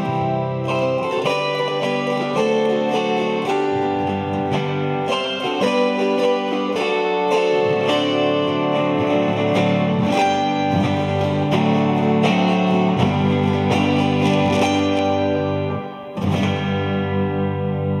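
Ensemble of four chromaharps playing a hymn arrangement: plucked melody notes over strummed, ringing chords. About 16 seconds in the playing breaks off briefly, then a strummed chord rings on.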